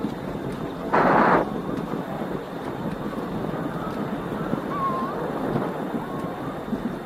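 Steady wind noise on the microphone with outdoor rumble during a bicycle ride. A short, loud burst of noise comes about a second in.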